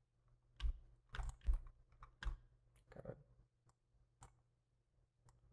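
Computer keyboard and mouse clicks: about ten short, separate clicks at an uneven pace, several in quick succession a second or so in, over a faint steady low hum.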